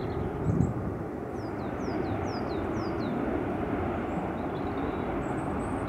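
Steady rumble of jet aircraft engines across the airfield, with a bird giving a quick run of short, falling chirps from about one and a half to three seconds in.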